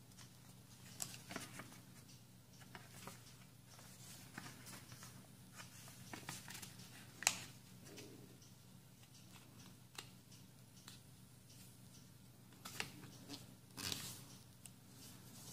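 A sheet of origami paper rustling and being creased by hand, in faint scattered crinkles and light taps on the table. The sharpest snap comes about seven seconds in.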